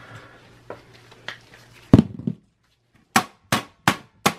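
Tapping on the back of a Dell Inspiron 660s's metal I/O shield to knock the stuck motherboard free. There is one loud knock about two seconds in, then four sharp taps in quick succession near the end.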